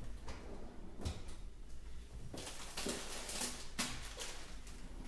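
Faint off-camera kitchen handling noises: a few knocks, then a stretch of scraping and clunks from about two seconds in, as a baking sheet is put away into a freezer.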